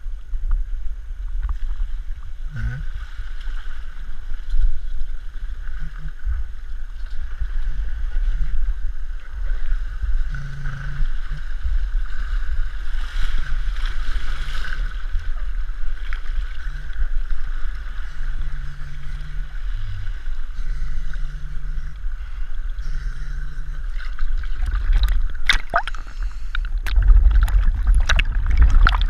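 Muffled water sloshing and rumbling, picked up by a camera in a waterproof housing worn under a diver's neoprene hood while the diver swims at the surface in shallow water. Sharper clicks and splashes come near the end.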